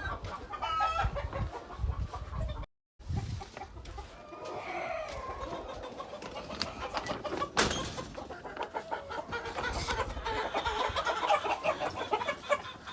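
Fayoumi chickens clucking, with one sharp knock a little past halfway.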